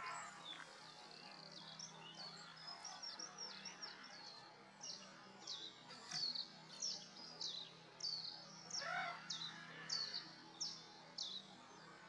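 A small songbird calling: short, high chirps that each drop quickly in pitch, coming about twice a second through the second half, with a lower rising call near nine seconds.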